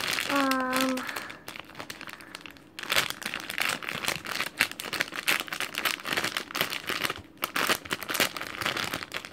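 Packaging crinkling and rustling as a toy wrestling table is unwrapped, in a rapid, irregular crackle from about three seconds in. A short hum of voice comes near the start.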